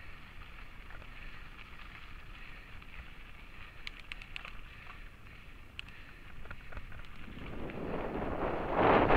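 Mountain bike rolling over a dirt and gravel trail, with a few sharp clicks and rattles about four seconds in. From about seven and a half seconds in, wind noise on the camera microphone builds and turns loud near the end.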